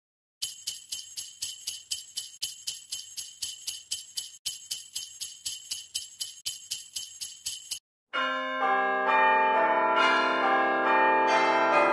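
Jingle bells shaken in a steady rhythm, about four shakes a second, stopping suddenly about eight seconds in. A held chord of pitched musical tones then starts and swells.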